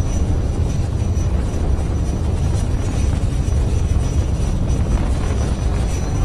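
Falcon 9 first stage's nine Merlin engines firing during ascent: a steady, deep rumble.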